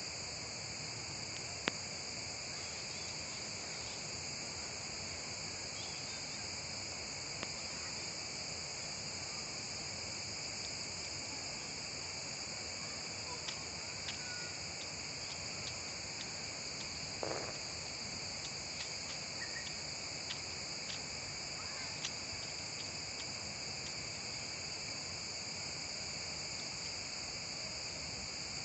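Steady, high-pitched chorus of insects that runs without a break, with a few faint scattered clicks.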